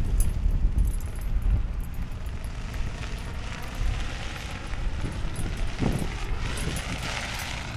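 Wind buffeting the camera's microphone: a gusting low rumble, with a higher rushing hiss building near the end.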